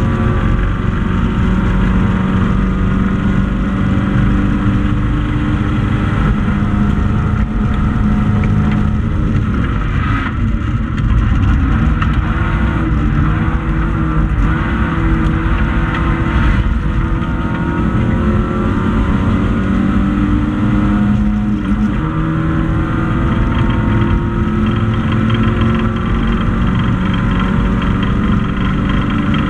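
Hatchback race car's engine running hard at high revs, heard from inside the stripped cabin; its pitch dips and climbs again a few times as the driver lifts and changes gear.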